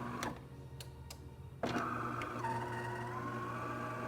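DeLonghi Magnifica espresso machine's internal motor running with a steady hum and a whine. It starts abruptly with a click about one and a half seconds in, dips in pitch, then slowly rises.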